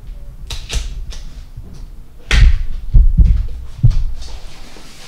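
Cardboard tablet packaging being handled, its printed outer sleeve slid off the inner box: scuffing of card with several knocks and thumps against the table, the loudest a little after two seconds in.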